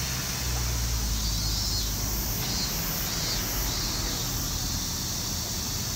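Outdoor ambience: a steady high hiss with a low rumble underneath, and a few faint chirps partway through.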